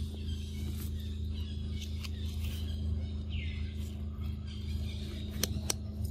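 Forest ambience: a steady low hum under faint bird calls, with two sharp clicks near the end.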